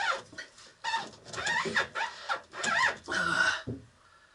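Squeaking and rubbing from a 1966 Mustang steering column being forced down through its floor gasket onto the steering box, in several squeals of shifting pitch that stop about three and a half seconds in. The column is binding, hung up on a felt washer at the top of the steering box.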